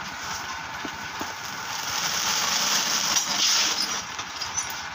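Rice roasting in a hot wok for puffed rice, with a loud hiss of steam that builds about two seconds in and eases near the end. Under it runs a steady low machine rumble.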